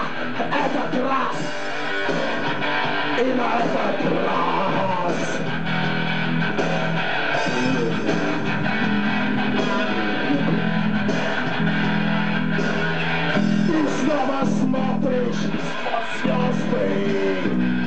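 Rock music with guitars and a steady bass line, a voice singing over it in places.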